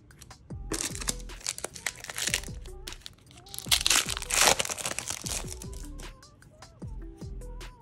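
Crinkling and tearing of a Flesh and Blood Welcome to Rathe foil booster pack wrapper as it is opened, in two bouts, the second louder, over background music.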